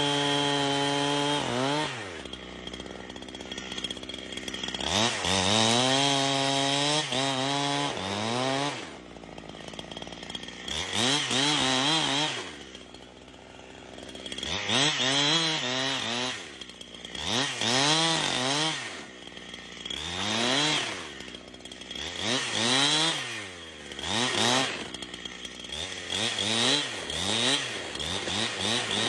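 Two-stroke chainsaw cutting wood, its engine revving up and dropping back again and again. From about ten seconds in, the revs rise and fall every two seconds or so.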